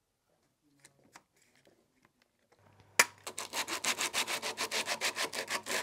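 Small wooden box body rubbed back and forth on a sheet of sandpaper laid flat on a workbench: hand sanding with quick, even scratchy strokes, about five a second. Before it, faint handling clicks and a sharp knock about three seconds in.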